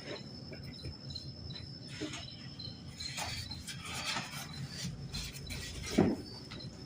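Cardboard box scraping and rustling as a small portable generator is pulled out of its packaging, with a heavier thump about six seconds in. A steady, high, repeating chirp runs underneath.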